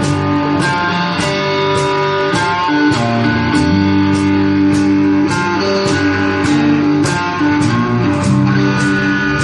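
Live band playing a blues-rock song: guitar holding sustained notes over bass, with a steady beat of sharp hits a little under two times a second.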